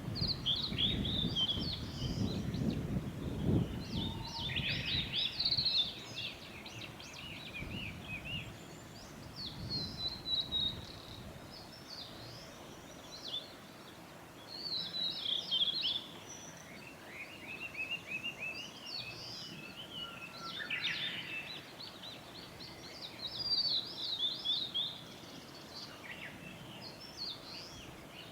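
Male blue-and-white flycatcher singing: a run of high, varied whistled phrases, each a few seconds long, with short pauses between them. A low rumble underlies the first several seconds.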